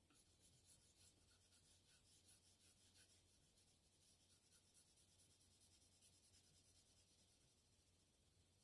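Faint scratching of a Tombow NQ colored pencil shading on drawing paper in rapid back-and-forth strokes, busiest in the first three seconds and lighter after that.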